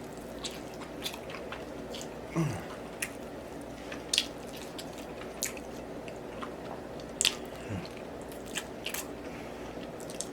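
A man eating saucy barbecued baby back ribs close to the microphone: wet chewing and irregular lip smacks, with a short falling hum of a voice a couple of seconds in.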